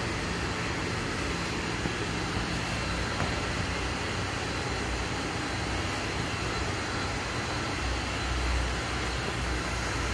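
Steady background noise with a low rumble underneath that swells briefly about eight and a half seconds in.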